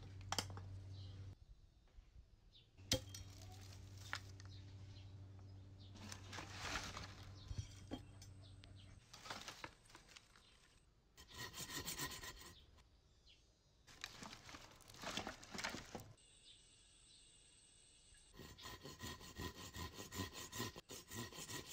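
Dry branches snapping and rustling as deadwood is broken off and gathered, with a sharp crack about three seconds in. Later, a hand saw cuts through a wooden pole in several bouts of quick back-and-forth strokes, the last starting near the end.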